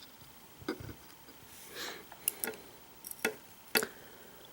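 Small pins from a disassembled pin-tumbler lock being handled and set down on a work surface: light, sharp clicks, about six of them scattered irregularly, with a soft brief rustle a little under two seconds in.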